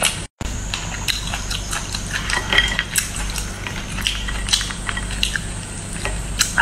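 Short, irregular clicks and crackles of a steamed Boston lobster's shell being pulled apart by hand, with a brief cut-out of all sound about a third of a second in.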